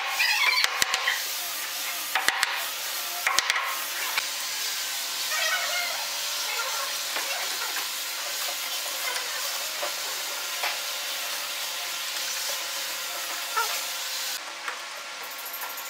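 A few sharp knocks in the first few seconds: a hammer tapping joints of a pine table frame home. These sit over a steady hiss.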